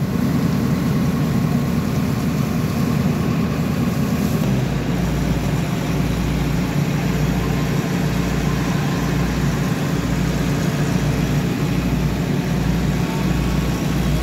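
Diesel engine of a JCB 3DX Super backhoe loader running steadily, heard from the operator's cab. About four seconds in, a low, regular throb sets in under the engine note.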